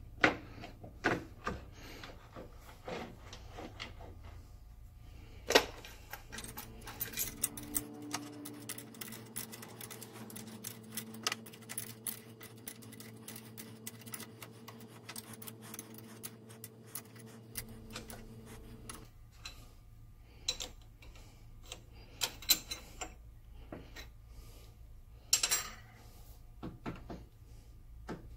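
Scattered metallic clicks, clinks and knocks as the compound rest is set back onto a Sheldon lathe's cross slide and fastened down with a hand tool. A faint steady hum runs through the middle stretch.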